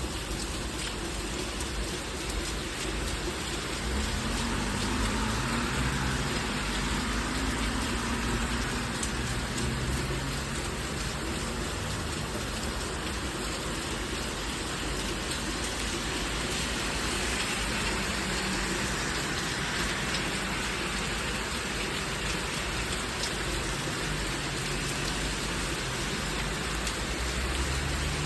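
Steady heavy thunderstorm rain falling and pattering on surfaces, with a low rumble underneath that swells around four to ten seconds in and again near the end.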